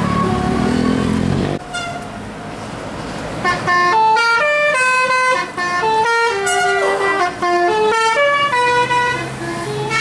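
Tour bus's multi-trumpet 'telolet' musical air horn playing a quick tune of stepped notes, starting about three and a half seconds in and stopping near the end.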